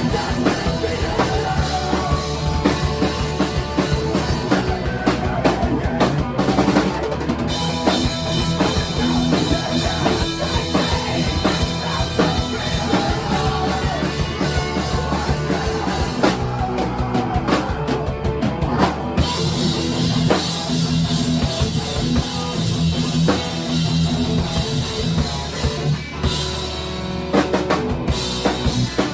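Rock music with a drum kit playing a steady beat, bass drum and snare prominent.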